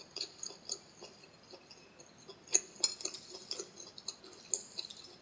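Faint mukbang eating sounds: scattered wet clicks and crackles as a whole cooked turtle is pulled apart by hand and its meat chewed.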